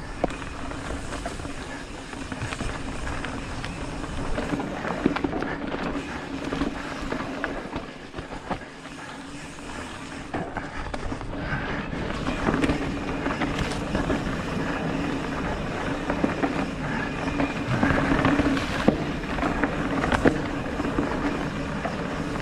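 Mountain bike rolling along a dirt singletrack: knobby tyres running over packed dirt and leaves, with frequent clicks and rattles from the bike as it bumps over the trail.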